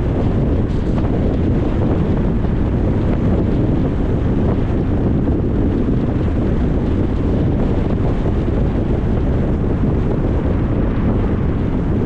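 Steady road and wind noise from a car on the move: an even, low rumble of tyres and rushing air that does not change.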